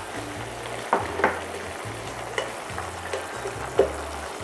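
Soy-and-wine sauce boiling and sizzling in a stainless steel frying pan while maltose and sugar are stirred in with a metal spoon, which clinks against the pan four or five times.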